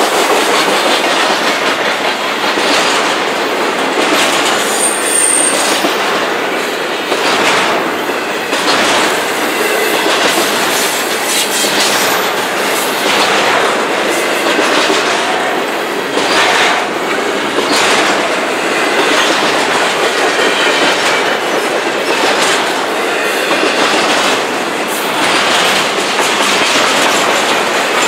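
Double-stack intermodal freight train rolling past at close range: a steady rumble of steel wheels on rail, with a clack every second or two as the well cars' wheel sets pass joints in the track.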